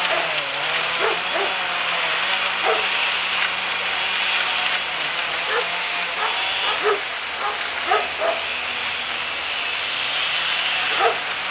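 A machine's engine running steadily with slight changes in speed, while a dog barks in short barks every second or two.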